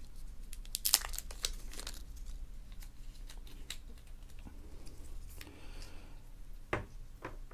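Hands unwrapping and uncoiling a rubberized USB charging cable: crinkling and rustling of its wrapping with scattered light clicks, the loudest cluster about a second in.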